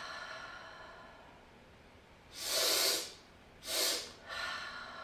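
A woman breathing audibly in the physiological sigh pattern. A long exhale through the mouth fades out, then come two quick inhales through the nose about a second apart, and a softer, longer exhale begins near the end.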